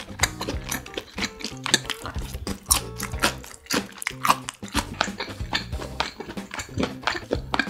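Background music, with wet chewing and mouth clicks of someone eating chop steak close to the microphone.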